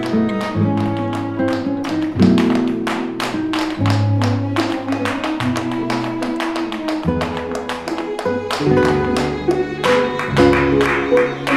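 Flamenco-style music with guitar, with fast sharp taps of a dancer's heeled shoes several times a second.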